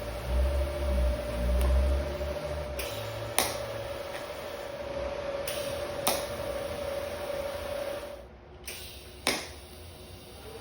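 Small electric power-tool motor running with a steady whine, most likely cutting a piece of 1/4 inch steel pipe to length, with a heavy low rumble in the first couple of seconds and a few sharp clicks. The whine stops about eight seconds in and starts rising again just before the end.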